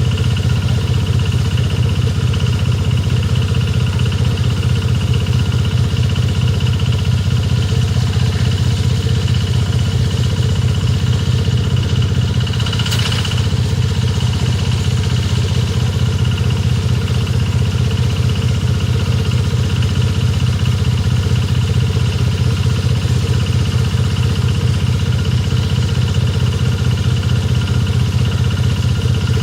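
Small petrol engine of a rice-reaping machine running steadily at an even speed, with one brief noisy burst about thirteen seconds in.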